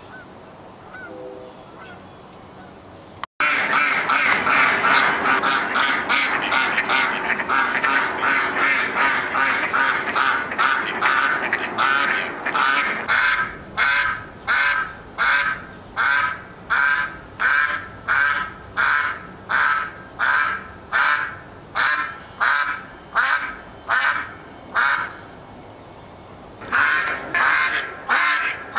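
Mallard duck quacking loudly and persistently. After a few seconds of low background, quacking starts suddenly as a fast, continuous run. It settles into single quacks a little more than one a second, breaks off briefly near the end, and starts again.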